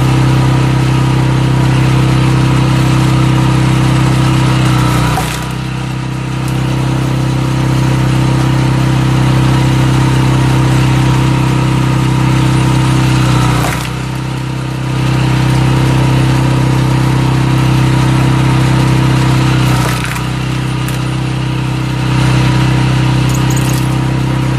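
Walk-behind cultivator engine running steadily while driving a screw cone log splitter through oak. Three times the engine note dips in pitch and loudness for a second or two, as the screw loads up in the wood.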